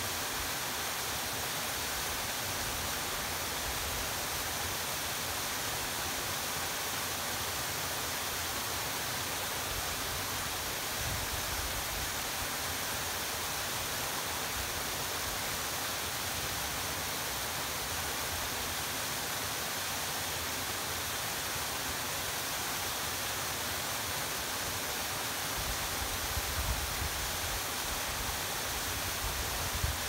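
Steady splashing rush of a narrow waterfall pouring down a rock face into a pool. Low rumbling wind on the microphone comes in near the end.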